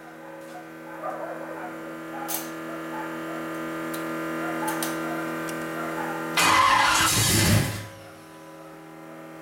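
Steady electric hum of the water pump and cooling fan, broken about six seconds in by a loud second-and-a-half burst of the big-block Chevy V8 being cranked on the starter without firing: the cam timing is 180° out.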